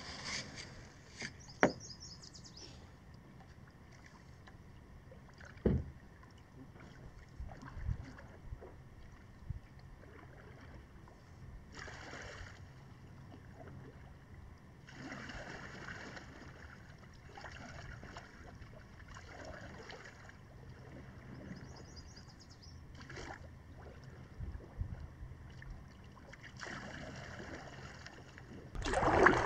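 Quiet sounds of a kayak launching off a sandy beach and paddling away: soft paddle dips and water sloshing in the shallows, with a few sharp knocks.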